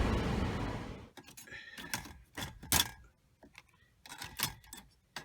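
A vehicle's steady running noise for about a second, which cuts off abruptly; then a series of sharp clicks and short, light rattles.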